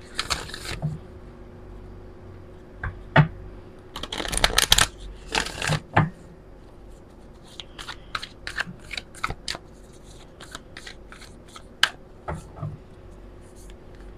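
Oracle card deck being shuffled by hand: a few bursts of riffling in the first six seconds, then scattered light clicks of cards being handled and fanned out.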